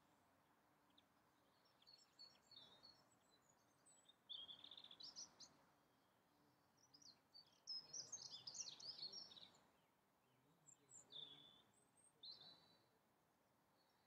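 Faint birdsong: a few short spells of high chirping and warbling, with quiet stretches in between.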